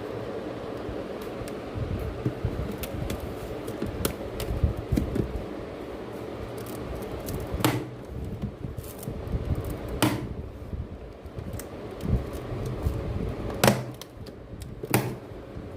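A steady mechanical hum with scattered sharp clicks and taps, a few louder ones in the second half.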